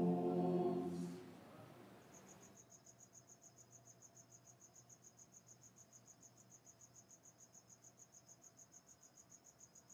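Men's chanting fades out in the first second or so. Then a faint insect chirp repeats steadily, about five chirps a second.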